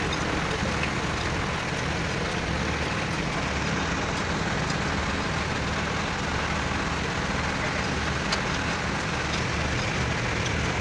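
Heavy diesel truck engine idling with a steady low hum.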